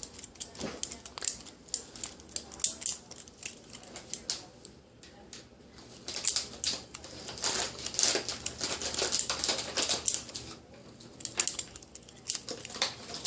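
Plastic clicking and clattering of a homemade LEGO Technic butterfly knife being flipped open and shut during tricks, in irregular runs of quick clicks, densest from about six to ten seconds in.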